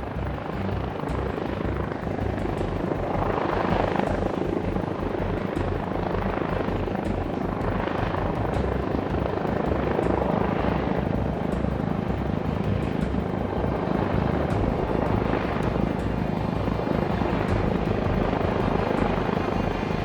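YU XIANG F11-S AH-64 Apache 1/32-scale RC helicopter in flight: a steady whirring rotor and motor noise that swells and fades several times as it manoeuvres.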